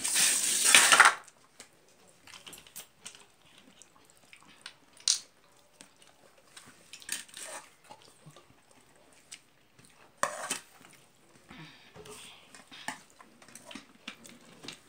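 Fingers mixing rice on a steel plate, with soft clinks and taps of hand and food against the metal. A loud noisy burst about a second long comes at the start, and a shorter one about ten seconds in.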